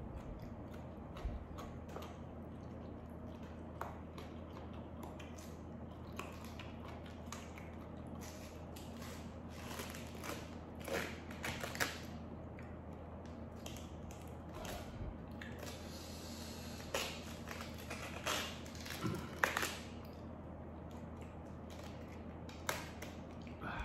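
Chewing, then crisp snapping and tearing as leaves are pulled off a raw red cabbage head, in scattered clusters, over a low steady hum.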